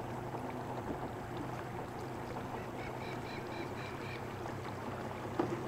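A boat's outboard motor running steadily at a distance, a low even hum over the rush of the river. A quick row of short high chirps comes about three seconds in.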